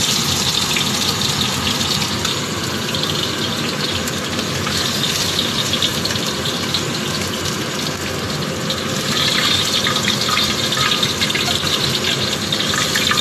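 Round scad (galunggong) frying in hot oil in a wok: a steady sizzle with scattered crackles.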